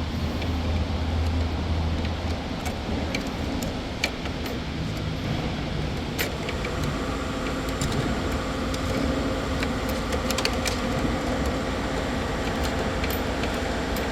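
Steady workshop background hum with scattered small clicks and taps as the eyeball camera's mounting ring is fitted and turned behind the grille. A low hum fades out about two seconds in.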